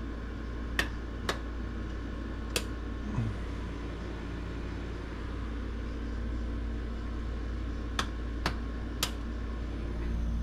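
Steady low electrical hum of running equipment, with a few sharp clicks scattered through it, three near the start and three close together near the end.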